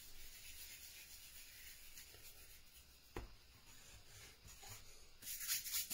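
Hands rolling a ball of bread dough on a floured wooden board: faint rubbing and brushing, with a short knock about three seconds in and a louder scrape near the end.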